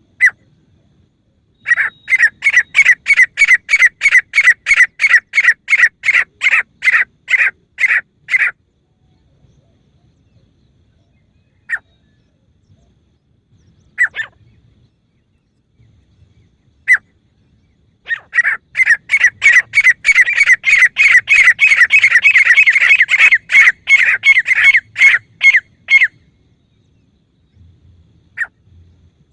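Female grey francolin calling: loud, sharp, high notes repeated quickly, about two or three a second, in two long runs. Single calls fall in the gaps between them, and the second run is faster and denser.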